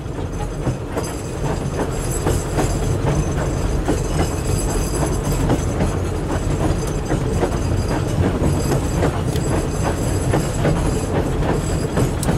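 Narrow-gauge railway carriage on the move, heard from inside: a steady rumble from the wheels with many short clicks over the rail joints, and a thin high squeal from the wheels through much of it.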